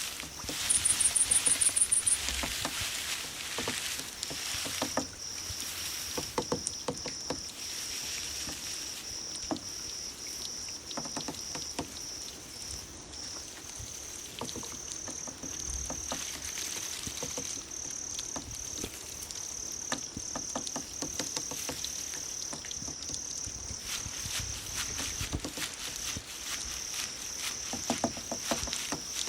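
Recorded crickets chirping. A brief, louder and higher trill comes about a second in, and from about four seconds on a steady, rapidly pulsing trill runs on, over scattered light clicks.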